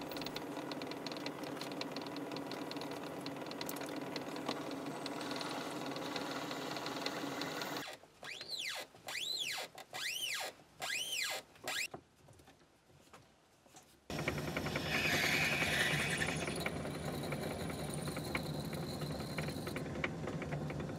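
Myford ML7 lathe running steadily while a small brass nut is drilled and turned in its chuck. Around the middle the running sound breaks into several short bursts with a rising-and-falling whistle, goes quieter for a couple of seconds, then runs steadily again.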